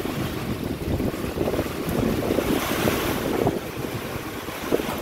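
Strong storm wind buffeting the microphone in driving rain, a dense, gusty rush.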